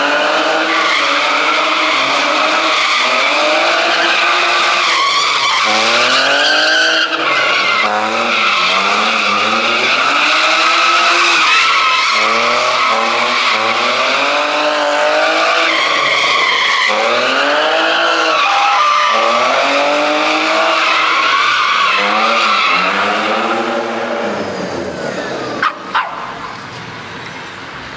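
A car engine revving up and down over and over, about every one and a half seconds, with tires screeching under it as the car slides in a burnout or donuts. It drops somewhat in level near the end, with two sharp pops.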